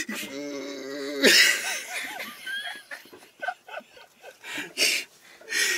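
Men laughing and snickering in a small cabin. At the start comes a drawn-out wavering squeaky tone about a second long.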